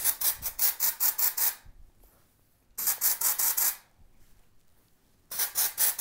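Aerosol dry shampoo spraying onto hair roots: a hiss in three runs, each made of rapid pulses at about six a second, with short pauses between runs.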